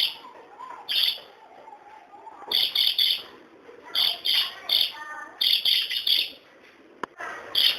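Budgerigar chirping: sharp high-pitched chirps in quick groups of two or three, repeating about every second or so, with soft warbling chatter between the groups.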